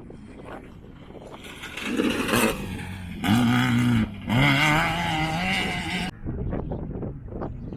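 Off-road race vehicle's engine revving hard through a dirt turn, its pitch climbing and dropping with the throttle. The engine note breaks briefly about four seconds in and climbs again. About six seconds in it cuts off, giving way to rough noise.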